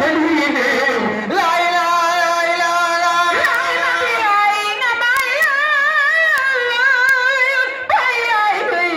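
A man singing solo into a microphone in long held, wavering, ornamented notes, chant-like, with short breaks for breath between phrases.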